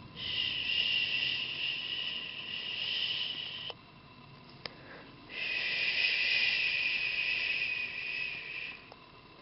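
A person making two long, soft shushing hisses ("shhh"), each about three and a half seconds, with a short pause between them.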